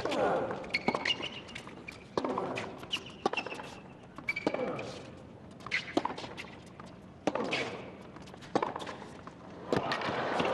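Tennis balls struck by rackets in a baseline rally on a hard court: a sharp pock about every second and a quarter, with ball bounces between the strokes. Short high squeaks of shoes on the court come between the hits.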